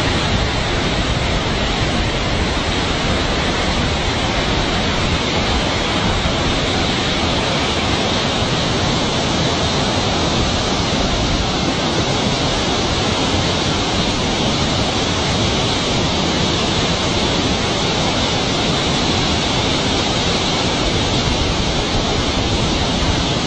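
Steady rush of fast water pouring down a sloped channel, an unbroken noise without pauses or separate splashes standing out.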